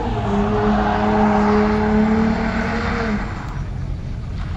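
Car engine held at high revs as a car spins doughnuts in the dirt, with a hiss under it. The revs hold steady, then the driver lets off about three seconds in.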